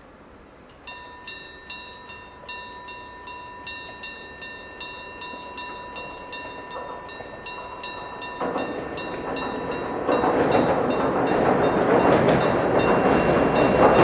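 Old electric-bell level-crossing warning bell at Jōmō Electric Railway crossing No. 104, starting about a second in and ringing in a steady, rapid rhythm of struck strokes. An approaching train's running noise builds under it and grows sharply louder about ten seconds in.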